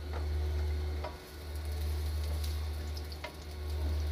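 Chopped onion sizzling in hot cooking oil in a pan, with a few light clicks of a spatula as it is stirred, over a steady low hum.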